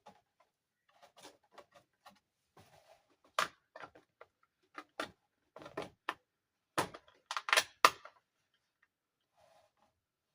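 Irregular clicks and taps of plastic toy dollhouse parts being handled and fitted together, with the loudest knocks in a quick cluster near the end.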